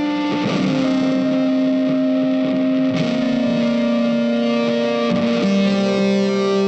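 Background music: an electric guitar through effects playing slow, long held notes that change pitch every two to three seconds.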